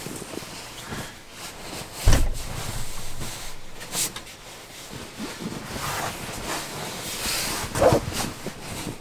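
Sleeping bag and down jacket fabric rustling as a person settles into the bag, with a heavy thump about two seconds in as he lies down, and more rustling with a sharper knock near the end as he sits back up.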